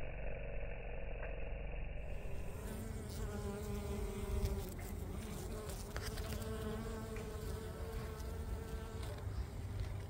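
A flying insect's wings buzzing close by, a steady humming tone that wavers slightly in pitch, starting about two and a half seconds in and fading near the end.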